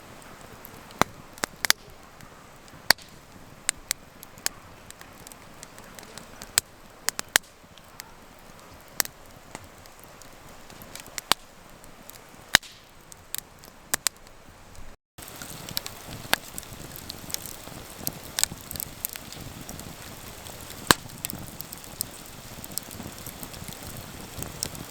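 Wood campfire crackling, with irregular sharp pops over a steady hiss. The sound drops out briefly about halfway through.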